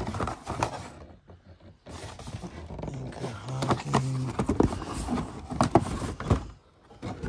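Objects being handled and shifted around in a storage box: irregular knocks, clatter and scrapes, with a short lull about a second in.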